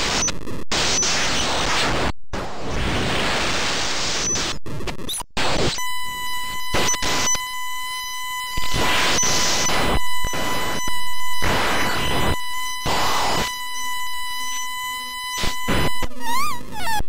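Harsh electronic noise: dense hiss broken by several abrupt cut-outs, then from about six seconds in a steady high-pitched electronic tone under repeated swells of hiss. Near the end comes a wavering pitch sweep.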